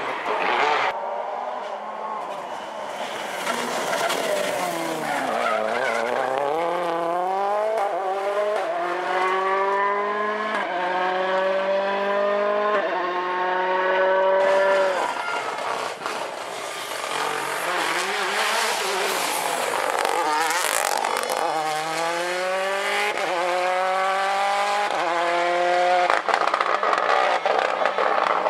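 Rally car engine slowing for a corner, then accelerating hard with the pitch climbing and breaking at each quick upshift. This happens twice, with tyres squealing on the gravel or tarmac.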